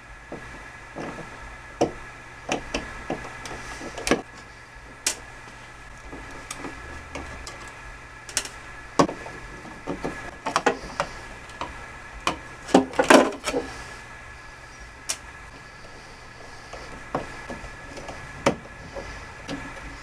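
Screwdriver backing out the screws of a metal wall-switch cover plate and the plate being worked off an old double toggle switch: scattered small clicks, scrapes and knocks, the loudest cluster a little past halfway, over a steady hum.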